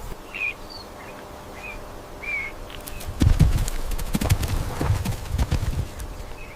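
A few short bird chirps, then from about three seconds in a quick, irregular run of knocks and thuds: animal hoofbeats on the ground.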